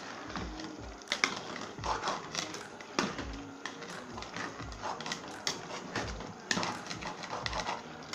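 Metal spoon stirring a thick, wet vegetable soup in a metal pot: scraping and clicking against the pot with soft thumps, about two strokes a second.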